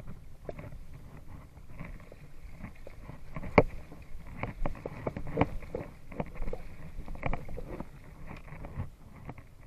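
Water lapping and slapping against the hull of a small fishing boat, with irregular light knocks and splashes.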